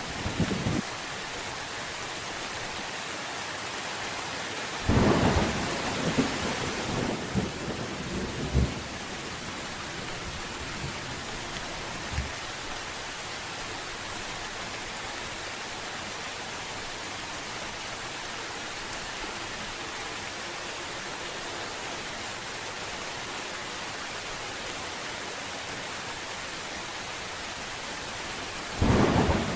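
Steady rain hissing, with a thunderclap about five seconds in that rumbles on for a few seconds, and another thunderclap starting just before the end.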